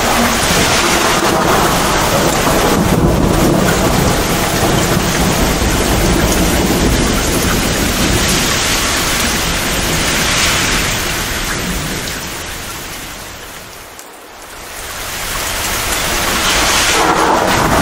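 Torrential rain pouring down with thunder rumbling low underneath. About three-quarters of the way through, the whole sound fades down briefly and swells back up.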